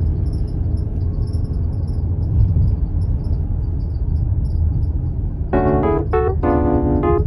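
Background music: a low, droning ambient passage, then keyboard chords come in about five and a half seconds in and repeat in short blocks.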